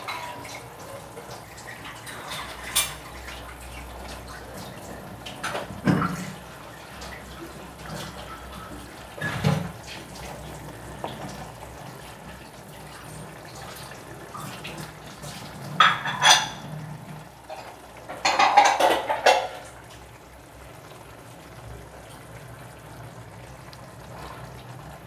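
A spatula scraping and knocking against a karahi as pieces of hilsa in mustard gravy are turned over: a handful of separate scrapes and clinks, busiest about three quarters of the way through, over the gravy's low steady simmer.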